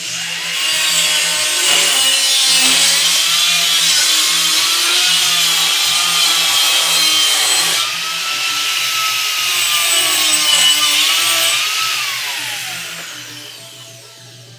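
Pulsed TIG welding arc on stainless steel pipe: a loud hissing crackle that starts abruptly, with wavering whistling tones in it, and fades out over the last couple of seconds as the arc is tapered off.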